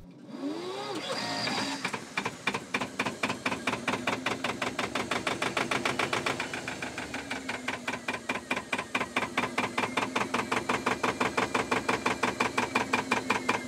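Air-cooled two-cylinder Lister Blackstone marine engine being started by its electric starter: a rising whine as it cranks, catching about two seconds in, then running with a steady, rapid chugging beat that settles slightly lower after about six or seven seconds.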